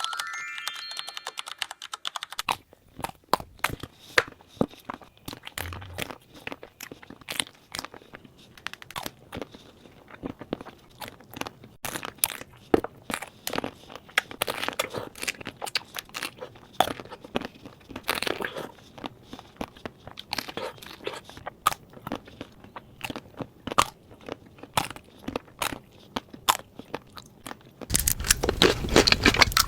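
Close-miked eating of chocolate-covered fruit: sharp crunches and crackles as the hard chocolate shell is bitten, with wet chewing between bites. The crunching gets denser and louder near the end. A brief pitched tone sounds in the first two seconds.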